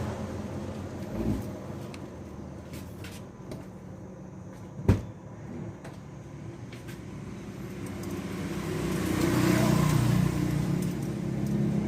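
Steady mechanical hum of a 1997 Honda City, with a sharp click about five seconds in and a rising whir near the end, as the newly fitted rear power-window switch is about to be tested.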